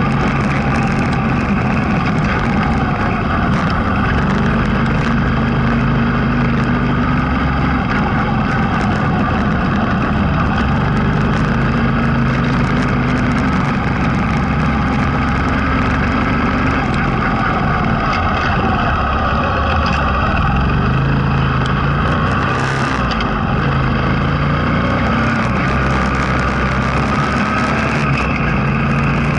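Motorcycle engine running steadily while riding, its low note shifting now and then with the throttle, under constant wind and road noise.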